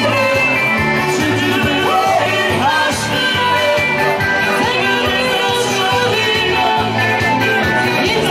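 Live band playing an upbeat song with a singer, guitar, bass line and drums.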